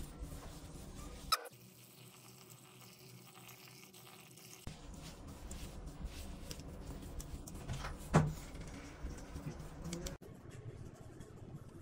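Gloved hands working a crumbly ground-chickpea falafel mixture in a stainless steel bowl: soft, uneven rustling and squishing, with two sharp knocks, the louder about eight seconds in.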